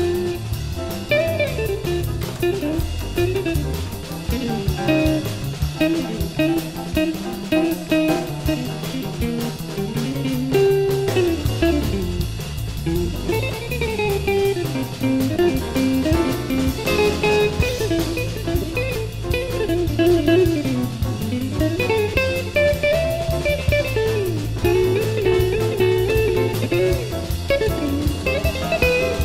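Big-band jazz recording: a guitar plays a winding solo line over bass and drums.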